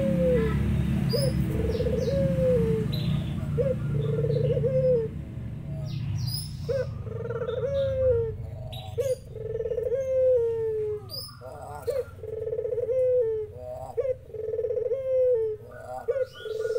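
A puter dove (Barbary dove) cooing over and over: each phrase is a short rising note followed by a rolling, falling coo, about once a second. A low rumble sits under the first few seconds, and from about six seconds in other small birds chirp and whistle over the cooing.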